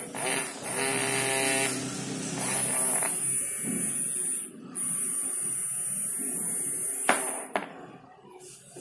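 Small brushed DC toy motor running with a high-pitched whine while its wire leads are held to power, dropping out briefly about four and a half seconds in, then running again until it cuts off with a click about seven seconds in.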